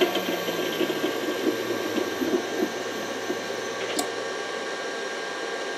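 Three-phase electric motor, run from a variable frequency drive, slowing down after being stopped: its hum slowly falls in pitch and fades over the first couple of seconds, under a steady whir. A single sharp click about four seconds in.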